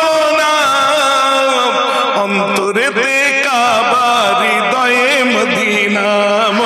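A man singing a Bengali Islamic devotional song (gojol/naat) into a stage microphone, in long, ornamented, gliding notes. A steady low drone sounds underneath from about two seconds in.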